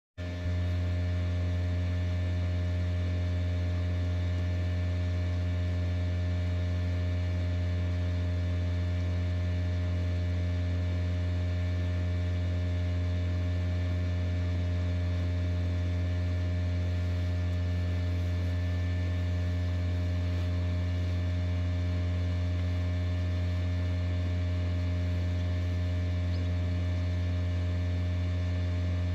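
Incubator's fan motor running with a steady low hum and a stack of fainter higher overtones, unchanging throughout.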